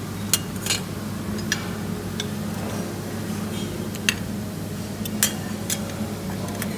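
Dining-room ambience of a buffet restaurant: scattered sharp clinks of cutlery and crockery, about eight in all, over a steady low hum.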